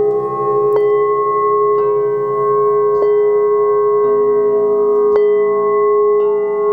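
Quartz (rock-crystal) singing bowls struck about once a second, their long pure tones ringing on and overlapping in a steady sustained chord.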